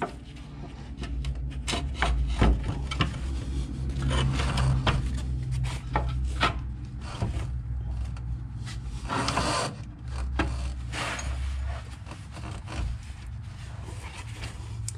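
A new steel front lower suspension arm being shifted by hand into its mounting, scraping and rubbing against the surrounding metal with scattered knocks, and a longer scrape about nine seconds in. A low steady hum runs underneath.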